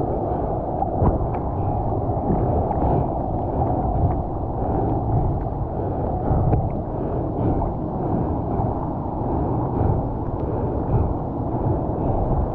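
Sea water sloshing and lapping around a bodyboard and a camera held just above the surface, a steady muffled rush with occasional small ticks of splashes.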